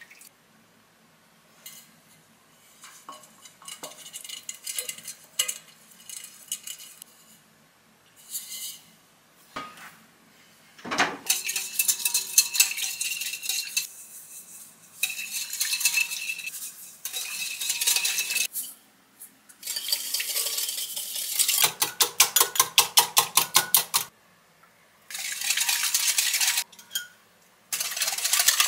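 A wire whisk beating a butter and egg mixture in a glass mixing bowl: bouts of fast, rhythmic clinking and scraping against the glass, several seconds each with short pauses between. Before that, quieter scattered scraping and tapping of a silicone spatula stirring melted butter in the bowl.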